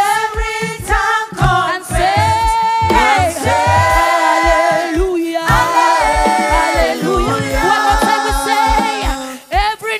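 Live gospel worship music: a group of singers singing together in harmony, holding long notes, over a band with a steady drum beat.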